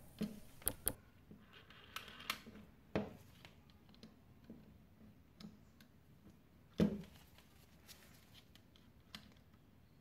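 Faint, scattered clicks and taps of multimeter test probes against the plastic terminal pins of a washing-machine drain motor, with small handling noises, and one louder knock about seven seconds in.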